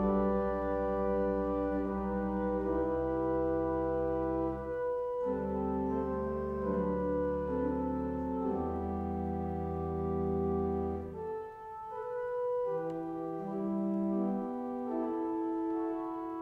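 Slow instrumental music of long held chords over a deep sustained bass note; the bass drops out about two-thirds of the way through.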